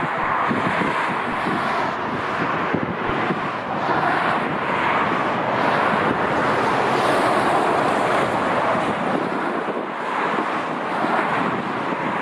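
Strong wind buffeting the microphone in loud, uneven gusts.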